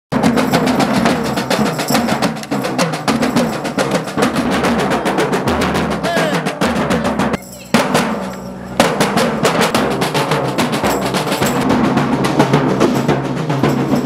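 Marching drum band of snare drums and a bass drum playing a fast, dense beat, with a short drop-out about halfway through.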